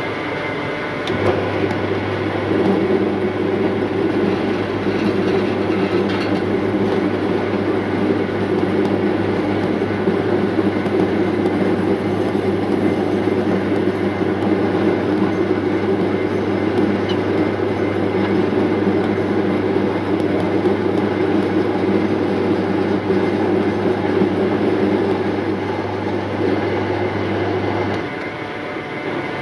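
Electric rice seed sorting machine running, paddy grain feeding from its hopper through the rollers with a steady hum and rush of grain. The louder hum starts about a second in and drops off near the end as the hopper runs empty, leaving the machine running quieter.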